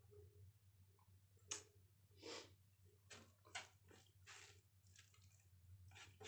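Fingers kneading and mixing boiled rice with dal on a plate: a run of faint, soft, wet squelches, roughly two a second, over a steady low hum.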